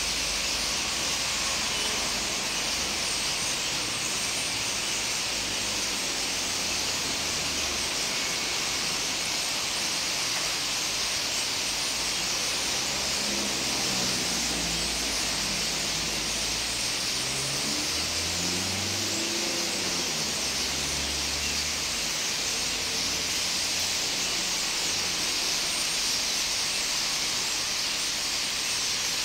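A large flock of birds chattering all at once, a dense, steady high din with no single call standing out.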